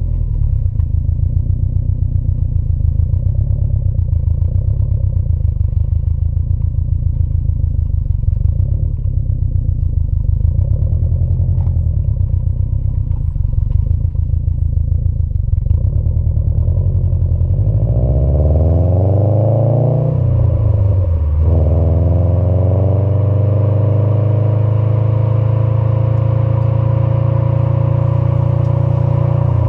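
2018 Subaru STI's turbocharged flat-four engine heard through an Invidia R400 cat-back exhaust. It runs low and steady with an even pulse, then about two-thirds in the revs climb. They fall sharply at a gear change and climb slowly again.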